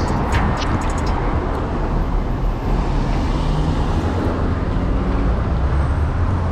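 Steady street traffic noise, cars passing with a low, even road rumble.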